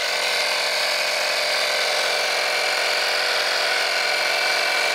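SunJoe AutoJoe ATJ-Air1-HYB tire inflator's compressor starting at once and running steadily with an even buzz, under load inflating a truck tire toward 46 psi.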